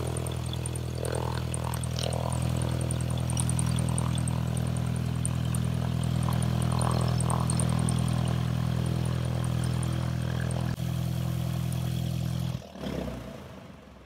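Cessna 172's piston engine and propeller running at a steady low idle while taxiing, then cutting off suddenly near the end.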